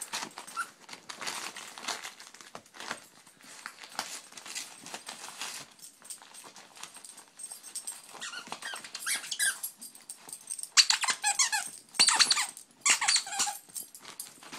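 A dog chewing a squeaky plush toy, the squeaker squealing in quick clusters of high squeaks in the second half, after several seconds of quieter rustling.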